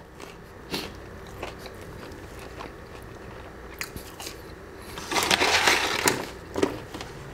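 Close-miked eating: a small bite and chewing with little wet mouth clicks. About five seconds in there is a louder burst of scratchy rustling lasting about a second as the paper waffle-fry carton is picked up, then a single sharp tap.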